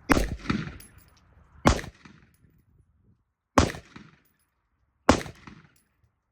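Four single rifle shots from an IWI Tavor X95 bullpup rifle, fired slowly about one and a half to two seconds apart, each followed by a short echo.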